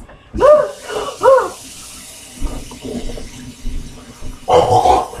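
A person howls twice, each cry rising and then falling in pitch, from a mouth burning after eating Scotch bonnet peppers. Water runs steadily from a kitchen tap, and another loud cry comes near the end.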